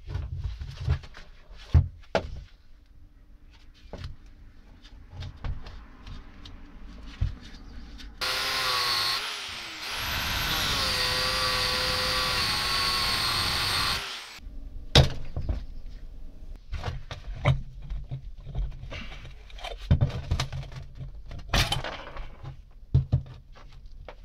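Angle grinder running for about six seconds in the middle, grinding rusty metal on an old electric water pump, its pitch dipping briefly and picking up again just after it starts. Before and after, sharp metal clinks and knocks as the pump's parts are handled and pulled apart.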